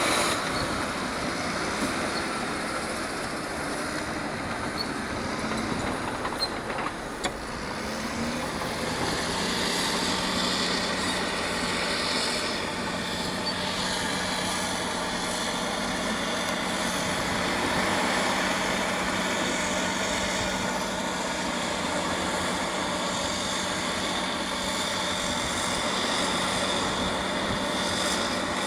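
Caterpillar D6R LGP crawler dozer at work, its diesel engine running steadily under load with the grinding and clatter of its steel tracks.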